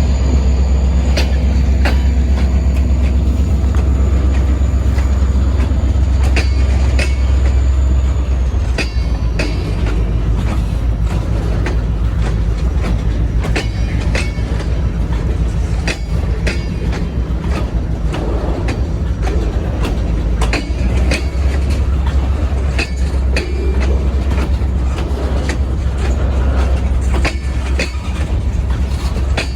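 Train passing on the rails: a loud low rumble with many sharp wheel clicks over the rail joints. A thin high whine drops away about nine seconds in.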